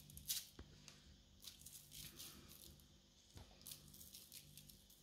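Faint, scattered dry rustles and patters of sugar sprinkled by hand onto biscuits on a tray lined with baking paper.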